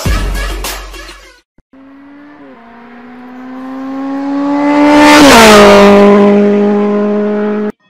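A racing car engine passing by, likely a dubbed sound effect: a steady engine note swells to a loud peak with a rush of noise about five seconds in, drops in pitch as it passes, then holds and cuts off suddenly. Background music stops about a second and a half in, just before it.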